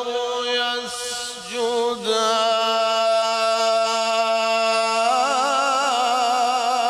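Male Quran reciter (qari) chanting in melodic tajweed style: quick ornamented runs for about two seconds, then one long held note that steps up in pitch about five seconds in and wavers with vibrato.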